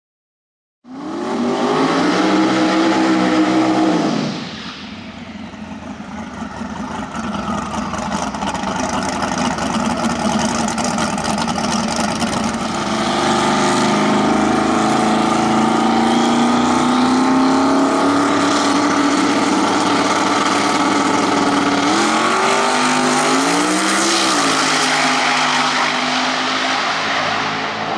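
Twin-turbo V8 engine of a Mazda RX3 drag car, loud and revving, rising in pitch for a few seconds and then cutting back sharply. It builds again to a loud, steady run, and near the end climbs in pitch once more as the car accelerates hard down the drag strip.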